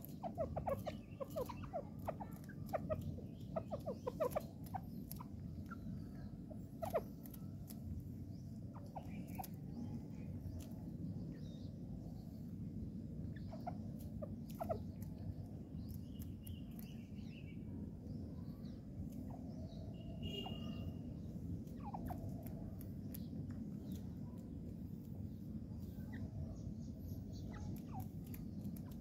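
Partridge (teetar) calling: a fast run of short repeated notes in the first few seconds, then scattered short clicks and brief notes over a steady low hum.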